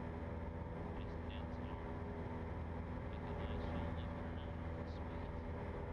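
Cessna 172's piston engine and propeller droning steadily at full power in the climb after takeoff, heard through the headset intercom.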